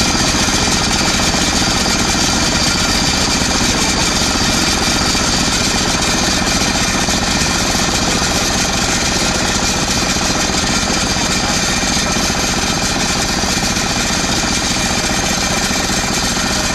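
Small engine on the boat running steadily at close range, with a fast, even beat.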